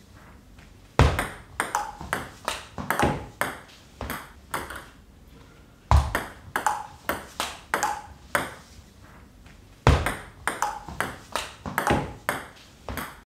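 Table tennis ball clicking off bats and bouncing on the table in three short rallies. Each opens with a harder hit and runs on as quick clicks, about two or three a second. The returns are backspin-sidespin blocks against the feeder's drives.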